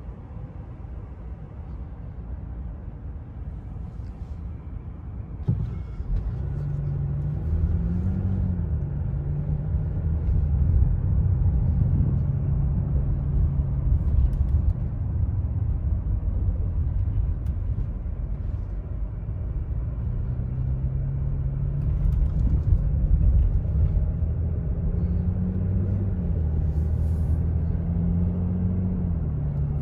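Mercedes GLS 400d's 3.0-litre inline-six diesel heard from inside the cabin. It hums quietly at a standstill, then pulls away about six seconds in. Its low note rises and drops as the automatic gearbox shifts up, twice.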